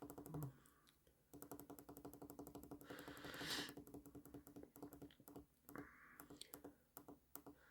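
Faint, rapid clicking of small push buttons pressed over and over, many clicks a second, stepping the clock's time setting up.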